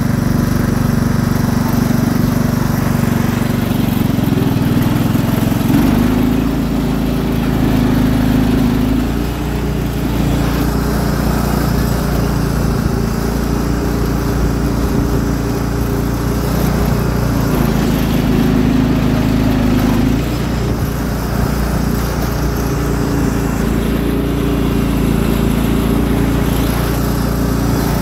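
Cub Cadet 2166 lawn tractor engine running steadily while the tractor drives with its front plow blade, its pitch and loudness shifting slightly every few seconds.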